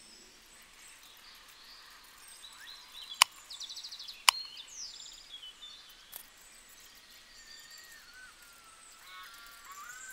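Birds chirping and singing in the background, with a quick trill early on and wavering whistled notes in the second half. Two sharp clicks, about three and four seconds in, are the loudest sounds.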